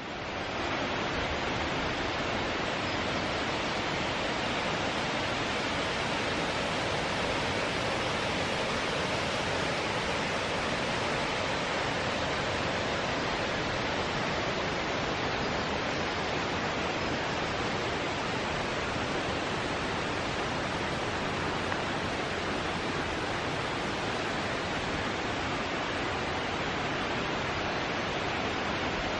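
Steady rushing of a mountain stream, an even wash of water noise that does not change.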